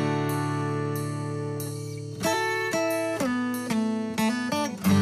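Background guitar music: a plucked chord rings and fades, then a run of single plucked notes follows about two seconds in.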